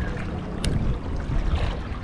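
Wind rumbling on the microphone over open sea water, with one short sharp tick just over half a second in.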